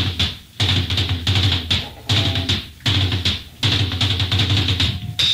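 Lo-fi rock band playing a stop-start passage: distorted guitar and drums hit together in short bursts with brief gaps between them.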